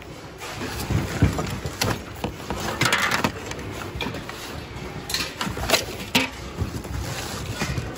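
Hands rummaging through a bin of mixed secondhand goods: hard plastic items knocking and clattering against each other at irregular moments, with a burst of fabric and bag rustling about three seconds in.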